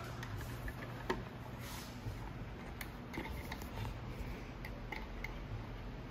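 Faint scattered clicks and small taps of hands handling parts, with one sharper click about a second in, over a steady low hum.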